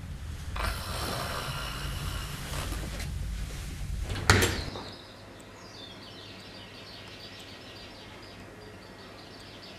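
Bedding rustling as a person climbs off a mattress, then a single sharp knock a little over four seconds in. After that it goes quieter, with faint high chirping ticks.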